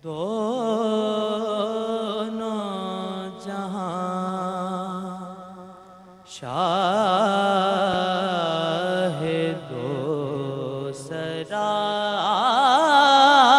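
A young man's solo voice chanting a naat (devotional praise poem) in long, ornamented held notes with vibrato. It comes in phrases, with a short breath break about six seconds in and another near eleven seconds.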